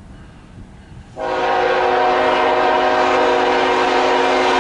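CSX freight locomotive's air horn sounding one long blast, a chord of several steady notes, starting about a second in and held steadily.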